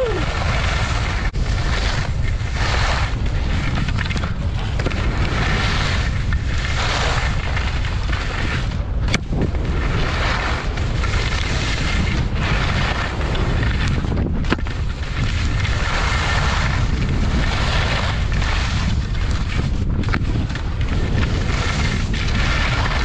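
Wind rushing over a helmet- or body-mounted GoPro Hero8's microphone at skiing speed, with the skis' edges scraping across packed snow in a hiss that swells and fades every second or two, and a couple of sharp ticks.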